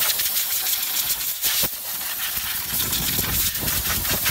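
Compressed-air blowgun on an air hose hissing in a strong blast, blowing dirt and debris off a Cummins diesel's valve cover, with a short break about a second and a half in.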